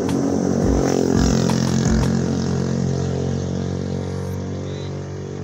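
A motor vehicle's engine running steadily close by, slowly easing in level, with a few low thumps in the first two seconds.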